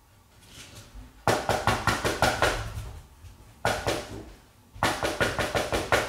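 Woodpecker trapped inside a fireplace, making three flurries of rapid knocking against the fireplace doors, about seven knocks a second, with a slight ringing.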